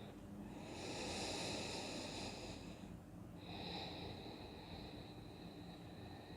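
Faint, slow breathing close to the microphone: two long breaths, each about two and a half seconds, with a short pause between them.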